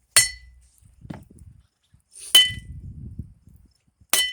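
Blacksmith's hammer striking hot steel on an anvil three times, about two seconds apart, each blow ringing briefly.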